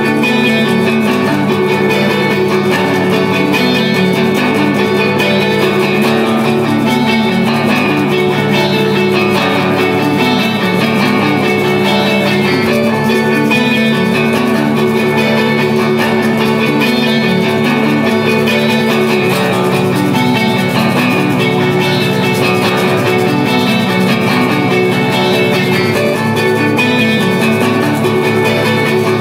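Background music led by guitar, with a repeating melodic figure.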